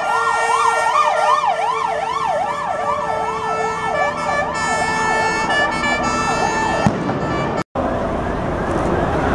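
Ambulance siren wailing, rising and falling fast, about twice a second. It stops about seven seconds in, and after a brief break in the sound, street noise follows.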